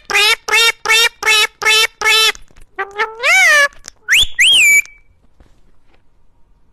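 A parrot calling: a quick run of seven short, even notes, about three a second, then one longer note that slides up and down, then two sharp whistled squawks.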